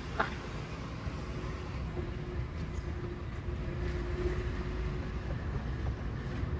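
Road noise of a moving vehicle: a steady low rumble that slowly grows louder, with a faint steady hum in the middle. A brief sharp squeak comes just after the start.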